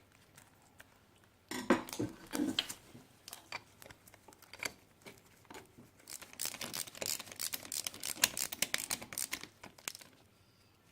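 Hand tools and a spark plug being worked back into a motorcycle cylinder head: scattered taps and knocks, then a run of rapid small clicks from about six seconds in.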